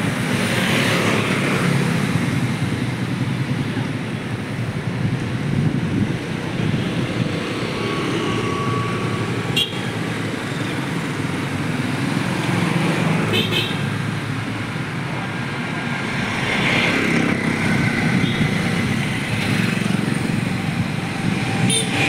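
Road traffic passing: a steady wash of car and motorbike noise, with a few short clicks.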